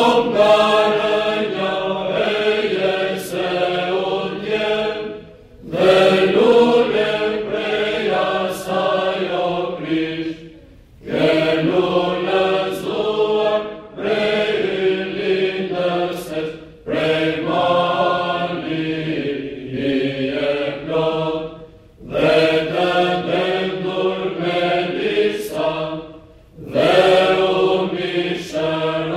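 Mixed choir of men and women singing Byzantine chant unaccompanied, in sung phrases broken by short pauses for breath every few seconds.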